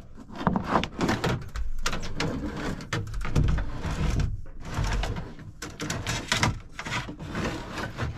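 Electrical wires being pulled and fed through a hole and along a wire loom under a boat's cabin roof: irregular rustling, scraping and handling knocks.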